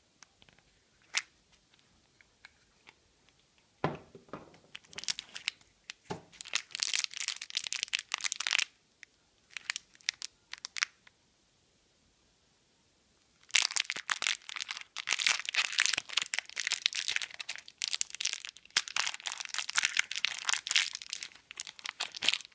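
A few clicks and a knock about four seconds in as the yellow plastic Kinder Surprise capsule is handled and opened, then the toy's thin clear plastic wrapper crinkling and tearing in two long spells with a pause between them.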